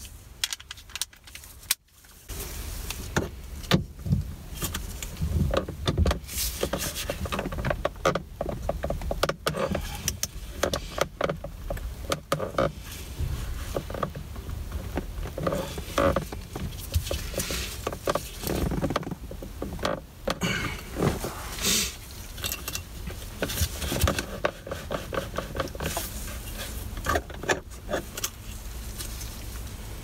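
Irregular clicks, knocks and rustling from a torque wrench and hands working at the steering shaft nut and steering wheel hub, over a low steady rumble.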